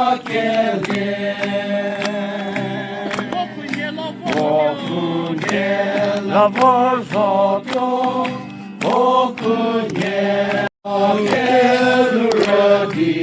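A group of voices singing a song together, briefly cut off about three-quarters of the way through.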